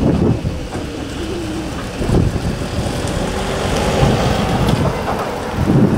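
Wind rumbling on the microphone over a vehicle engine running at a distance.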